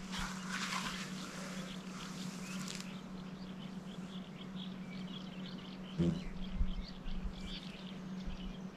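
Nylon tent fabric rustling for the first few seconds, then faint small bird chirps, with a soft knock about six seconds in and a steady low hum throughout.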